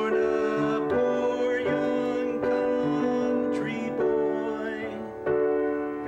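Upright piano playing sustained chords, a new one struck about every one and a half seconds. The chords alternate D major and G major over a held D in the bass.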